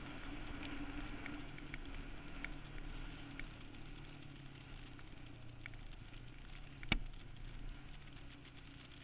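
Suzuki Quad Runner 160 ATV engine running steadily, growing somewhat quieter toward the end, with scattered light ticks and one sharp click about seven seconds in.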